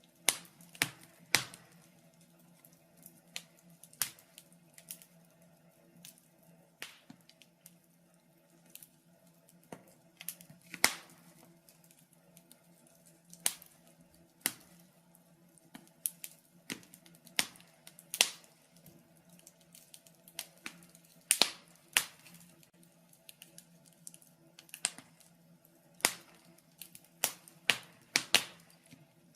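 Wood fire crackling in a fireplace: sharp, irregular pops and snaps, about one or two a second, over a faint steady low hum.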